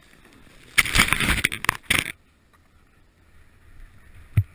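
A snowboard scraping and carving hard through snow for about a second, a loud crunching rush, then much quieter, with a single low thump near the end.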